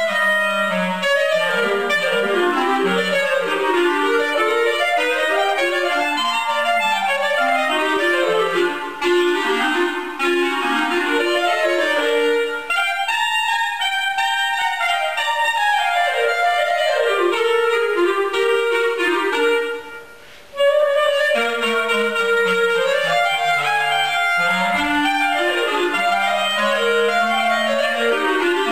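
Two clarinets playing a duet, two melodic lines weaving around and crossing each other. Both break off briefly about twenty seconds in, then come back in together.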